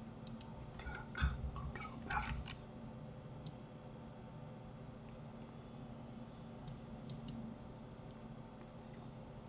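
Scattered clicks of a computer mouse and keyboard keys: a cluster in the first two and a half seconds, two of them louder, then a few faint single clicks later on. A faint steady hum runs underneath.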